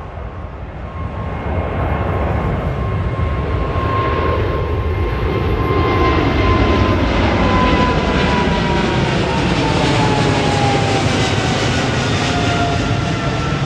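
Boeing 777 twin-engine jet airliner climbing out after takeoff, its turbofan engines at takeoff power. The noise grows louder over the first two seconds as the jet comes overhead and then holds loud. An engine whine slowly falls in pitch in the second half as the jet passes and moves away.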